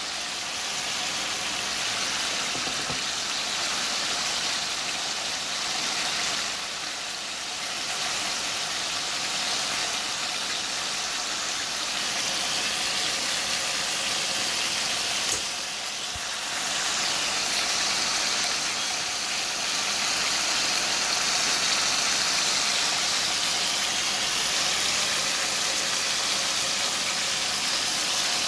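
Steaks sizzling steadily in hot oil in a frying pan. The sizzle dips briefly twice, and there is one sharp click about halfway through.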